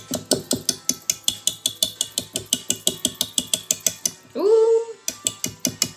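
Hand balloon whisk beating thick frosting in a mixing bowl, its wires knocking against the bowl about five times a second. The strokes pause briefly a little after four seconds, when a short rising tone is heard, then start again.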